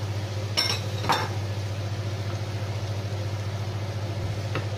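A wooden spoon and a bowl knocking against a skillet as parsley is scraped in and stirred: two sharp clinks about half a second and a second in, and a fainter one near the end, over a steady low hum.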